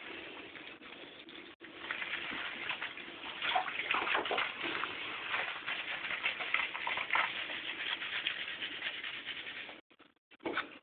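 Water sloshing in a bathtub and a hand rubbing a wet Maltese puppy's fur, an irregular splashing and rubbing that breaks off near the end.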